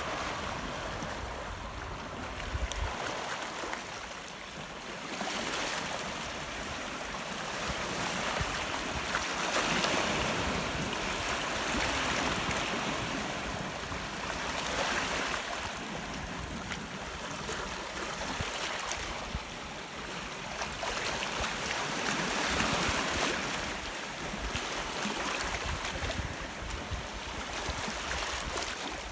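Small sea waves washing and splashing over a rocky shore, the surge swelling and fading every few seconds.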